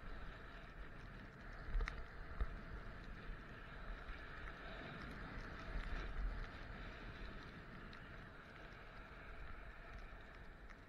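Steady hiss of sliding and carving over packed snow on a ski run, with wind rumbling on the microphone. A few sharp clicks come about two seconds in.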